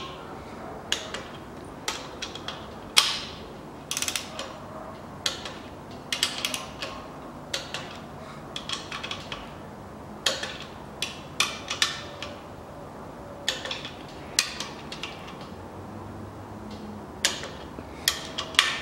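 Ratcheting torque wrench clicking as the crankshaft main bearing cap bolts of a 4B10 engine block are run down to 34.5 N·m. Sharp single clicks and short runs of clicks come at uneven spacing.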